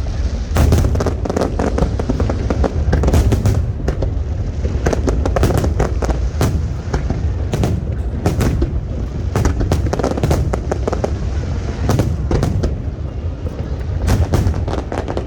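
Fireworks display: rapid, overlapping bangs and crackles of aerial shells bursting over a continuous low rumble.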